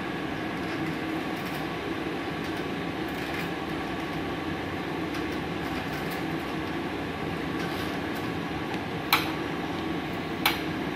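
Steady mechanical hum of a Multipro MIG-MAG 250NF G-KR inverter welder and its external wire feeder, which is pushing welding wire through the torch up to the tip. Two sharp clicks near the end.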